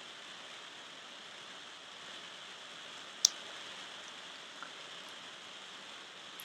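Light fireplace crackle: a soft, steady hiss with a single sharp click about three seconds in.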